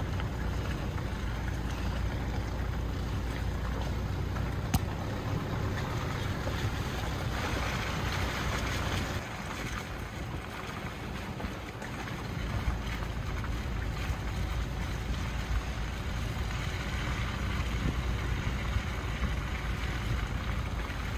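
Car driving along a forest road: a steady low rumble of engine and tyre noise with wind hiss. There is a sharp click about five seconds in and a louder stretch of hiss around eight seconds in.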